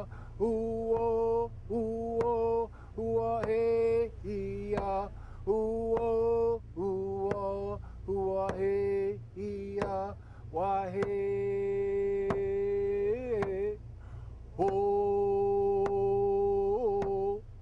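A man singing a chant in long held notes on a few pitches, with a waver at the end of some phrases. Sharp beats fall about once a second under the singing.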